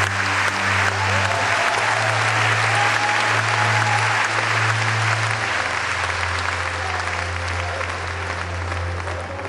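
A large audience applauding, over background music with slow, held bass notes.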